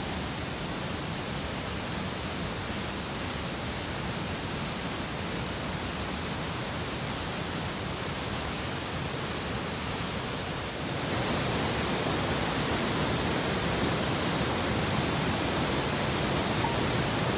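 Waterfall cascading down over granite boulders: a steady, even rush of falling water. About eleven seconds in it changes to the lower, fuller rush of whitewater in the rocky stream below the falls.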